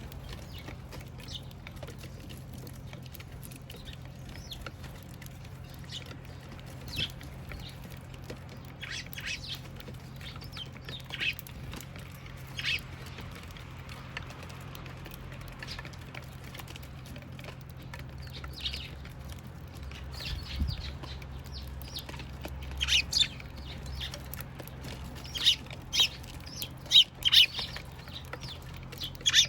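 Eurasian tree sparrows chirping: short, scattered chirps that come more often and louder in the last third, over a steady low hum.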